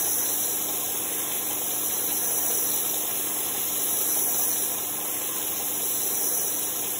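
Metal lathe running with its chuck spinning: a steady motor and spindle hum.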